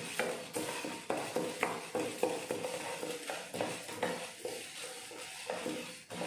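Wooden spatula stirring white urad dal as it dry-roasts in a pan: the dry lentils rattle and scrape across the pan bottom in repeated strokes, about two a second.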